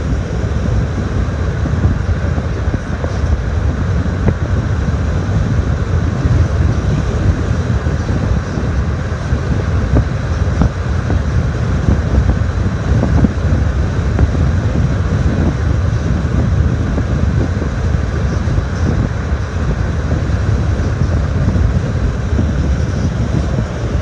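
Car driving at speed, heard from inside the cabin: a steady low road-and-wind rumble.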